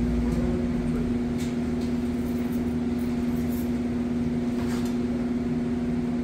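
A steady machine hum holding one constant pitch with fainter overtones, with a few faint brief clicks about a second and a half in and again near five seconds.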